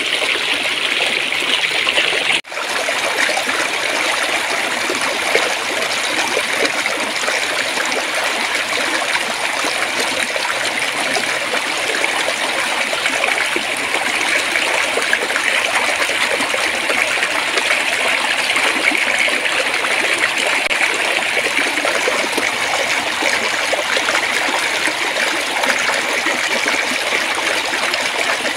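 Stream water flowing and babbling steadily over a shallow bed, with a momentary break in the sound about two and a half seconds in.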